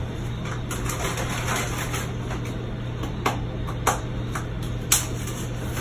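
A few short, sharp clicks and knocks of kitchen things being handled, over a steady low hum.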